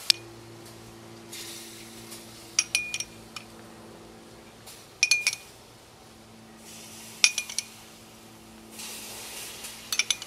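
Metal spoon clinking against a ceramic mug, in five short clusters of two or three clinks, about every two and a half seconds, each with a brief ring, as the spoon is dipped into the honey-water glaze and tapped on the rim.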